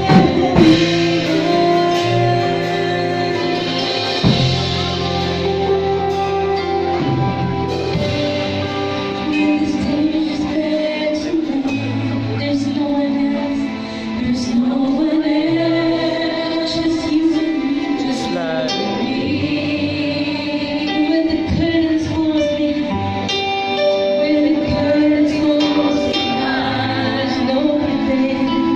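Live worship band playing a song: a woman sings lead over electric guitars and bass, without a break.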